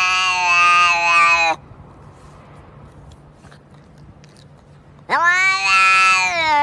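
A cat yowling in long, drawn-out calls: one breaks off about a second and a half in, and after a pause of about three and a half seconds another begins with a rising pitch.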